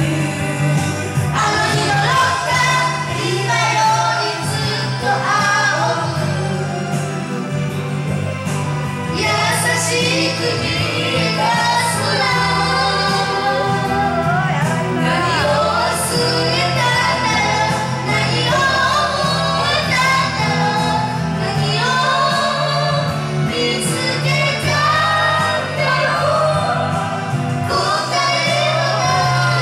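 A boy singing karaoke into a handheld microphone over a backing track, his voice amplified through the room's sound system.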